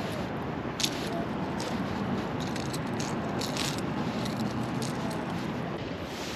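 Small clicks and rattles from a hard-bodied crankbait lure and its treble hooks being handled, with one sharp click about a second in, over the steady rush of the river.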